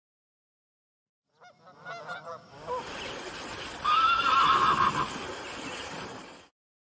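A horse whinnies, then water splashes heavily as the horse is ridden at speed through a shallow river. A louder, wavering whinny sounds over the splashing about four seconds in.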